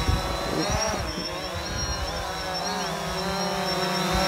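Quadcopter drone hovering close by: its four propellers and motors make a steady buzzing whine whose pitch wavers up and down as it holds position, growing louder toward the end.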